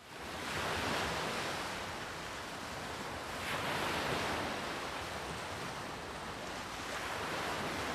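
Sea surf: a steady wash of waves that swells twice, about a second in and again around four seconds.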